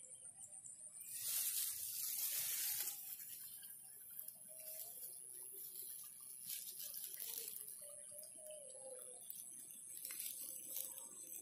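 Open rice-field ambience: a steady high insect drone, broken by a few short bursts of rustling noise. The loudest burst comes just over a second in and lasts about two seconds.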